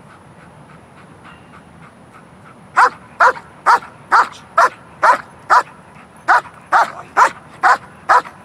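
Large black German Shepherd barking over and over at an even pace of about two barks a second, starting nearly three seconds in. The dog is held in a sit and barks in demand for the ball it is waiting to be given.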